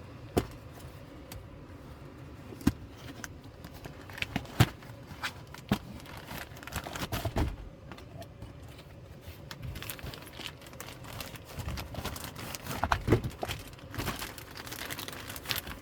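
A cardboard box and its packaging being opened by hand, with crinkling and rustling broken by several sharp knocks and taps.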